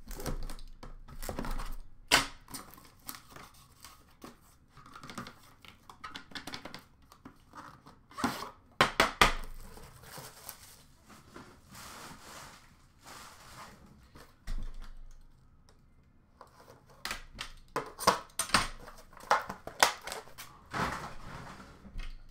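A knife slitting, and hands tearing, the shrink wrap and cardboard of a hockey card box, with crinkling plastic and sharp clicks and knocks as the box and the tin inside are handled. The sharpest clicks come about nine seconds in and in a cluster near the end.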